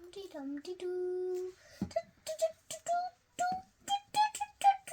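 A child humming and singing a wordless little tune: one long held note, then a quick string of short notes.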